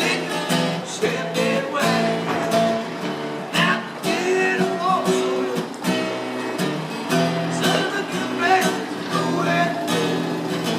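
Acoustic guitar music, strummed chords in a steady rhythm with a melody line over them.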